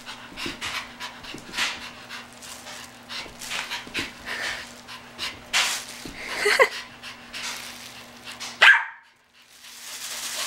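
Pomeranian panting quickly and excitedly as it jumps, with a couple of short high yips, the loudest near the end.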